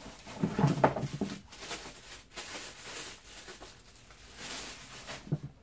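Rustling and crinkling of packaging as a vacuum cleaner part is unwrapped and handled, loudest in the first second or so.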